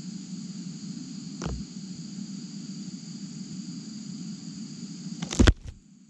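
Steady high chirring of insects, with a faint tap about a second and a half in and one sharp knock near the end.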